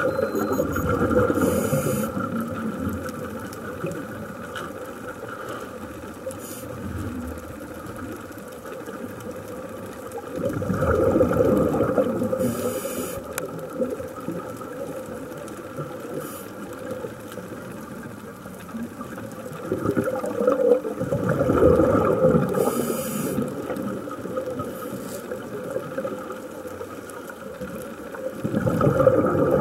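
Scuba diver breathing through a regulator underwater: a rumbling burst of exhaled bubbles about every ten seconds, each followed by a short hiss of inhalation, over a steady hum.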